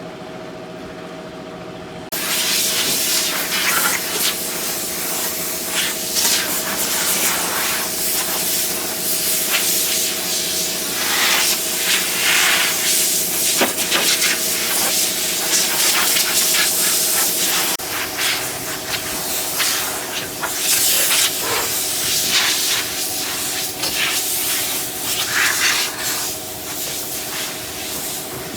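A loud hiss with a rough, rubbing texture starts suddenly about two seconds in and keeps going, rising and falling, over a steady machine hum.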